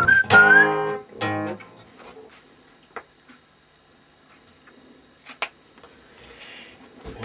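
Cutaway steel-string acoustic guitar strummed in a few chords for about a second and a half, then stopped. After that it is quiet but for a few short, sharp clicks, one about three seconds in and two close together a little after five seconds.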